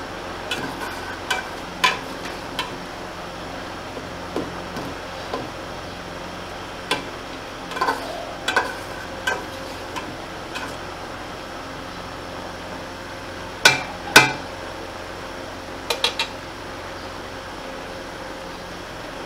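A spoon knocking and scraping against an aluminium pot while stirring boiled greens: scattered irregular clinks, the loudest two close together about two-thirds of the way through.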